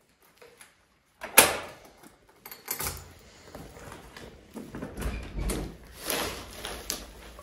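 A door being opened and shut: a sharp clunk about a second and a half in, then scattered clicks, knocks and rustling.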